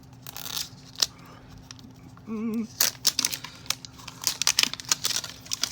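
Plastic toy packaging pulled open along its seam: crinkling with a run of sharp clicks and snaps, busiest in the second half.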